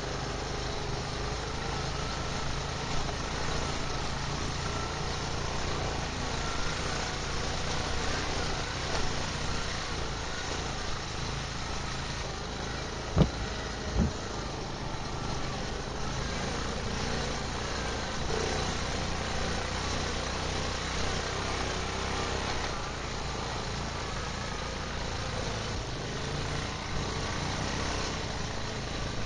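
Quad (ATV) engine running while riding a rough dirt trail, heard from on board the machine. Two sharp knocks about halfway through, a little under a second apart, are the loudest sounds.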